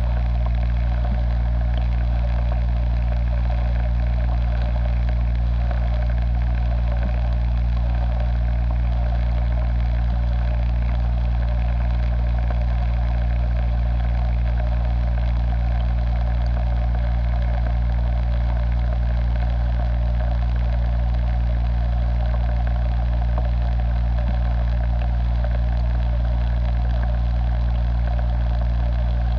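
A steady low mechanical hum, like a small motor or pump running, with a faint buzz and no change in pitch or loudness throughout.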